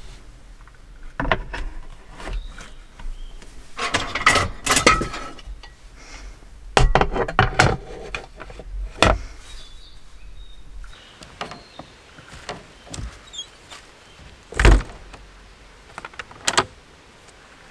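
Knocks, clatters and rattles of camping gear and fittings being handled in a wooden truck-camper box, irregular and uneven in strength, with one loud knock about three-quarters of the way through and a sharp smaller one soon after.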